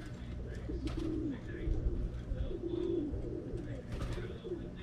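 Pigeons cooing: low, throaty coos repeating about once a second and overlapping, over a steady low background rumble.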